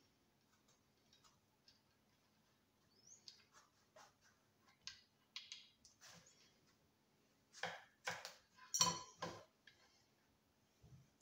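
Faint, scattered knocks and clinks of a kitchen knife cutting aubergine on a board, loudest in a quick run of strokes about eight to nine seconds in.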